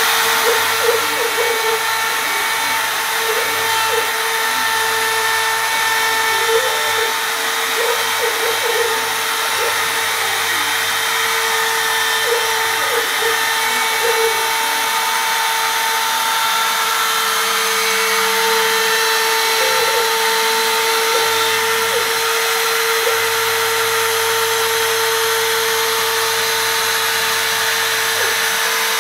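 CNC milling spindle running with a steady high whine as its end mill cuts into a fuselage mould block, over an even hiss of cutting with small scattered ticks of chips.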